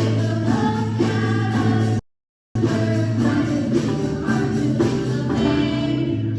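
Music with singing, broken once by a sudden half-second drop to silence about two seconds in before it carries on.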